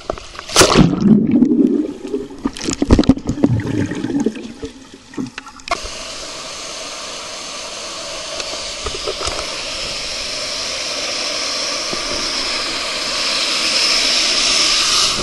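Water splashing and sloshing close to the microphone in loud irregular bursts, then, after a sudden change about five and a half seconds in, the steady rush of water running down a water slide flume, growing slightly louder toward the end.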